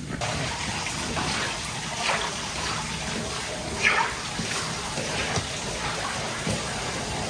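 Running water pouring and splashing over a gutted remora on a cutting board, rinsing out its belly cavity, with a few brief louder splashes.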